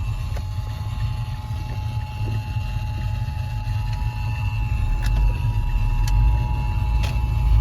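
Emergency Alert System two-tone attention signal on FM radio: two steady tones (853 and 960 Hz) sounded together, announcing a severe thunderstorm warning. A steady low rumble runs underneath.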